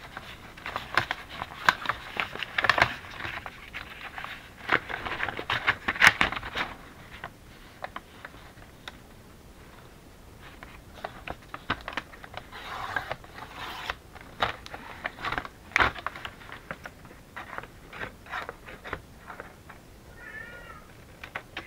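Brown paper bag rustling and crinkling in irregular crackles as it is handled and smoothed flat, busiest in the first several seconds. A cat meows briefly near the end.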